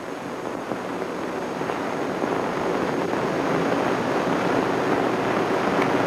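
A steady rushing noise, like moving air, slowly growing louder.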